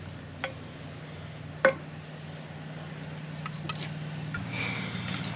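A metal spoon clinking against a can and the pot as condensed cream soup is scraped out: two sharp clinks about half a second and near two seconds in, the second the loudest, then a few lighter taps. A steady low hum runs underneath.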